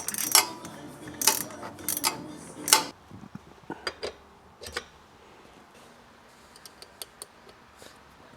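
Metal hand tools, Allen wrenches, clinking and clicking as they are handled: several sharp clinks in the first three seconds, then a few faint ticks.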